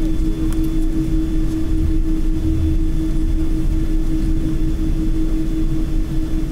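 Cabin noise inside a taxiing jet airliner: a steady engine hum with a held tone over a low rumble.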